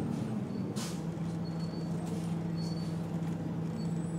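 Diesel engine of an MCI/Novabus Classic transit bus running steadily, with a short hiss of air about a second in.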